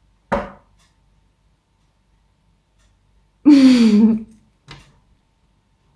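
A person's wordless voice: a short breath just after the start, then a drawn-out breathy vocal sound with falling pitch, like a pondering sigh, about three and a half seconds in.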